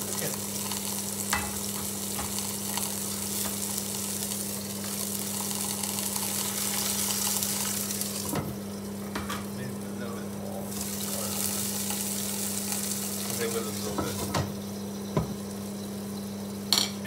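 Mushroom caps frying in oil in a pan, a steady sizzle. About eight seconds in a glass lid is set on the pan with a short clack, and the sizzle turns quieter and muffled, with a few small clicks afterwards.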